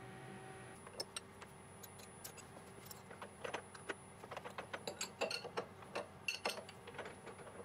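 Light, irregular metal clicks and clinks of a tool change on a mill spindle: the collet nut turned by hand and a wrench fitted to it as a tap is set in the collet. The clicks begin about a second in and grow more frequent after about three seconds.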